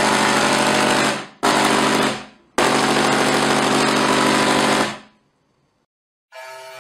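Musical Tesla coil's sparks buzzing out loud sustained notes, in three long phrases with brief breaks, cutting off about five seconds in. A quieter music sting starts near the end.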